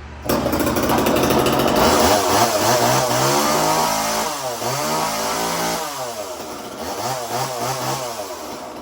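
A Homelite XL two-stroke chainsaw goes from idle to wide-open throttle about a third of a second in, runs flat out for a few seconds, then is revved up and down repeatedly before easing off near the end.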